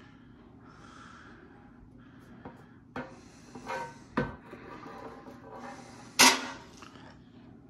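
A thin metal sign being handled, with rubbing and a few light knocks, then set down flat on a wooden table with one sharp clack about six seconds in, the loudest sound.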